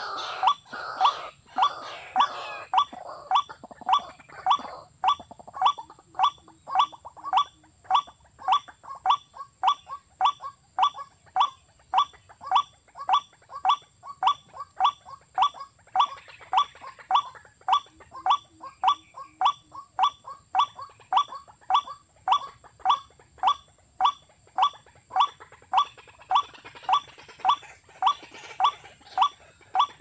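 Waterhen calls: a short, harsh call repeated at a very even pace, about three every two seconds, with a steady high hiss beneath.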